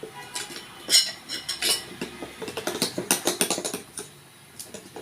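A utensil clinking and scraping against a mixing bowl while stirring thick pancake batter, in quick irregular taps that thin out near the end.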